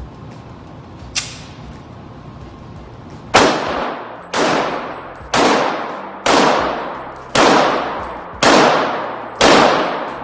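Gunshots: one fainter shot about a second in, then a steady string of seven louder shots about a second apart, each trailing off in a long echo.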